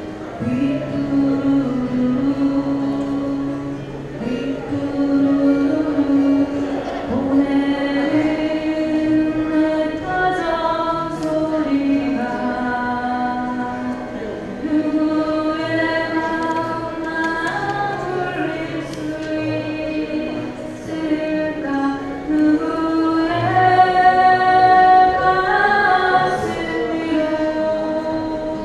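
A live solo singer singing a ballad with long held notes, accompanied on acoustic guitar.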